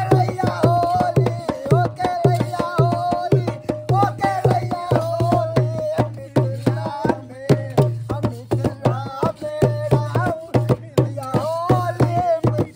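Dholak, a two-headed barrel drum, played in a quick steady rhythm, its deep bass head pulsing under sharp treble strokes, with men singing loudly in a Holi folk-song style.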